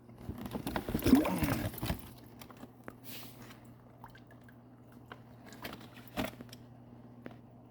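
Wet live rock being handled in its shipping packaging: about two seconds of rustling and sloshing, then scattered small clicks and a single sharp knock about six seconds in, over a steady low hum.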